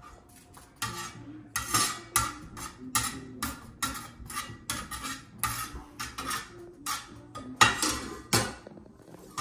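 A metal spatula scraping against a cast-iron skillet again and again, about two strokes a second.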